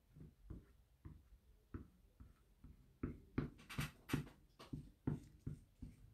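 Small squeegee dragged back and forth over a mesh screen stencil, spreading chalk paste in short scraping strokes about two a second, fainter at first and stronger from about halfway.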